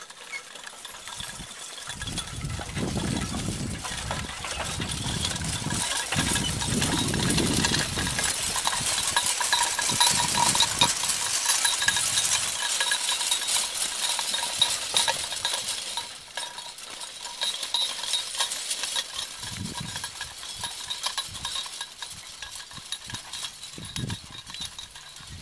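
Draft-horse team pulling a fore-cart and a drag harrow across a field: continuous metallic clinking and jingling of chains and harness as the rig moves. It is louder in the middle and drops off at about sixteen seconds.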